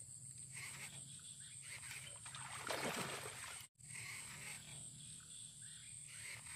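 Frogs croaking at a swampy pond, faint, over a steady high buzz and a low hum, with the loudest call about three seconds in. The sound cuts out for an instant just before four seconds in.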